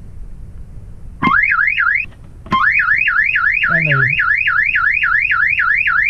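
Electronic burglar-alarm siren of the boat's DIY tripwire alarm going off: a loud, fast warble of rising sweeps, about four a second. It sounds briefly about a second in, stops, then starts again about two and a half seconds in and keeps going.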